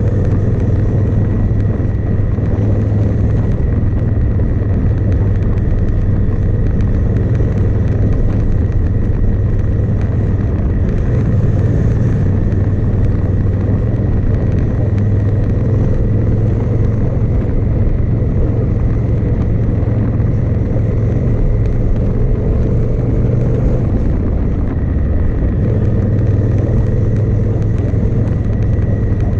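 Motorcycle running at a steady cruising speed: the 2018 Honda Africa Twin DCT's parallel-twin engine with wind and road noise.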